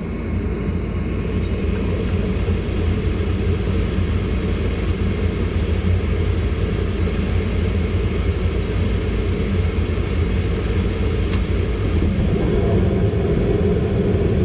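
Ducane gas furnace running through its ignition cycle: a steady low rumble from the draft inducer fan and burners, with a few faint ticks.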